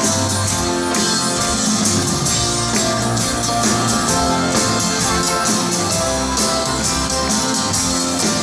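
Live rock band playing an instrumental passage with no singing: guitars, keyboard and drum kit, the drums and cymbals keeping a steady beat.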